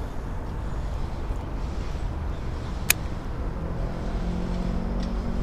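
Steady low rumble of road traffic, with a single sharp click about three seconds in. From about halfway through, a low engine hum joins it.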